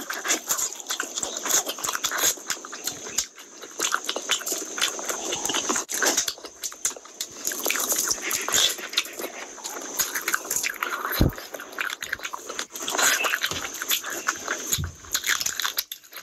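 Close-miked wet chewing and lip smacking of a person eating rice and spicy curry by hand, with many small mouth clicks.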